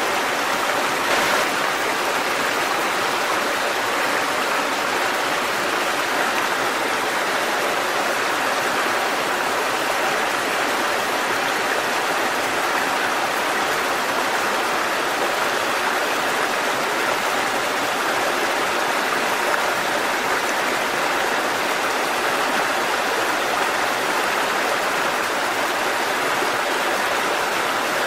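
Waterfall: a steady, even rush of falling and splashing water, with no change in level.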